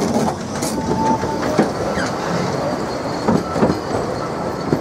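Narrow-gauge passenger coaches rolling past slowly, their wheels running on the rails with irregular clicks and knocks over the rail joints. A brief wheel squeal comes about a second in.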